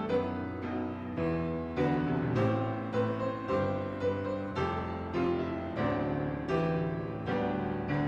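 Piano playing a slow piece: a new chord or note is struck roughly every half second to a second and left to ring out.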